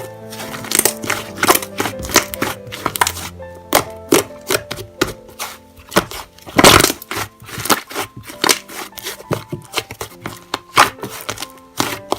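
Slime being pressed and played with by hand, giving irregular crackling clicks and pops, the loudest about two-thirds of the way through, over soft background piano music.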